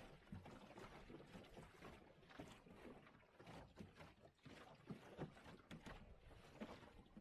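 Faint water splashing and lapping against the hull of a small wooden sailboat under way, in irregular slaps.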